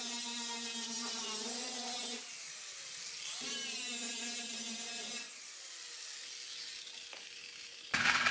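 Angle grinder grinding down the welded-up sheet steel of a 1927 Ford cowl: a steady motor whine over a grinding hiss. It runs in two stretches with a dip and swoop in pitch between them, then drops away about five seconds in.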